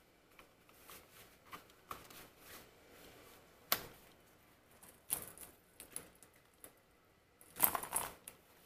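Fabric rustling and small clicks as a hanging piece of white cloth is handled and a thin wire is worked through it. There is a sharp tick nearly four seconds in, a brief rustle about five seconds in, and a louder flurry of rustling near the end.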